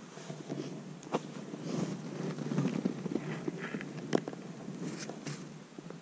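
Footsteps crunching and shuffling in deep snow, uneven, with a sharp knock about a second in and another about four seconds in.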